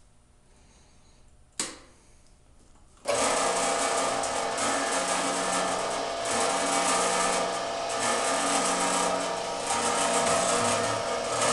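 Automatic band saw sharpener and setter being switched on: a sharp click, then about three seconds in the machine starts abruptly and runs loudly, its motor humming under the clatter of the feed and grinding mechanism, with a cycle repeating about every second and a half as it works the blade tooth by tooth.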